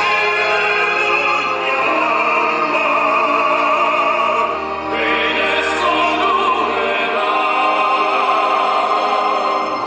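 Tenor voices singing in operatic style with orchestral accompaniment, the sung notes held with vibrato.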